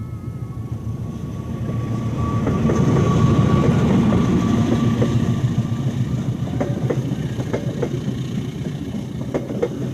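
Train passing close by. The rumble builds to its loudest about three to four seconds in, with a steady high tone over it at first, then sharp clicking of wheels over the rails in the second half.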